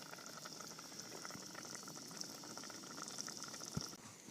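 Pot of goose stew bubbling on a Coleman camp stove, with a steady hiss from the burner under many small pops and crackles of the simmering food. A single knock near the end.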